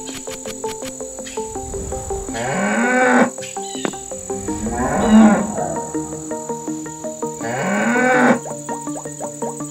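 A cow mooing three times, each moo about a second long, rising then falling in pitch, the middle one loudest, over background music.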